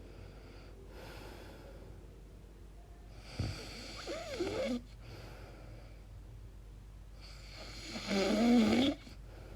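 A woman snoring in her sleep: two snores about four seconds apart, each about a second long, the second one louder, with a wobbling, fluttering pitch. She calls these very strange noises and wonders whether they point to sleep apnea.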